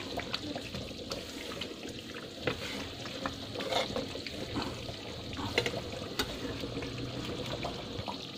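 Beef rendang in coconut milk simmering in a metal pan on the stove, bubbling steadily, while a spatula stirs it with scattered clicks against the pan.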